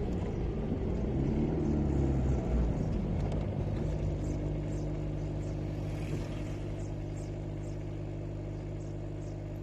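Range Rover engine sound effect: the engine comes down from higher revs over the first two seconds or so, then idles steadily and slowly fades.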